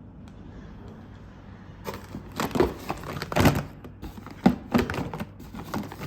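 Irregular rustling and clicking of things being handled, starting about two seconds in.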